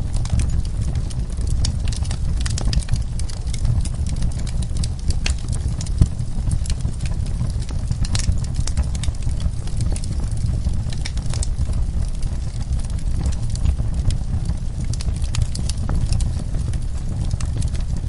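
Wood logs burning in a fireplace: a steady low rumble of flame with irregular crackles and pops, one louder pop about six seconds in.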